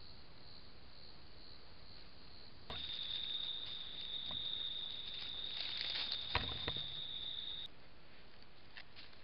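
European badger foraging in leaf litter, with a few rustles and scrapes, the loudest about six seconds in. Under them runs a steady high-pitched whine that starts about three seconds in and stops near the end. Faint pulsing high chirps come before it.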